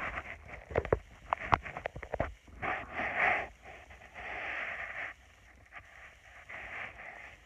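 Close handling noise on a phone's microphone: a quick run of clicks and knocks, then two longer rustles as a hand or arm brushes against the phone.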